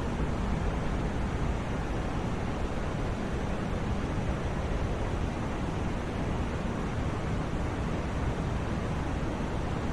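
Steady sleep white noise: an even, unbroken rushing hiss, heavier in the lows than the highs.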